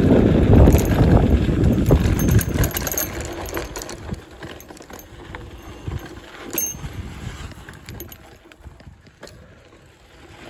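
Mountain bike rolling down a dirt trail littered with dry leaves: tyres crunching and the bike rattling over the bumps, with a low rumble. It is loudest in the first few seconds and fades gradually, with one sharp click about six and a half seconds in.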